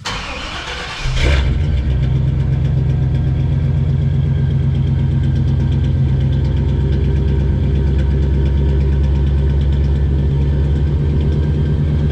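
Engine cold-starting: a brief crank, catching about a second in, then running steadily.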